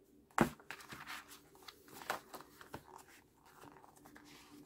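Paper and cardboard of a photobook album being handled: pages rustling and small taps, with one sharper knock about half a second in.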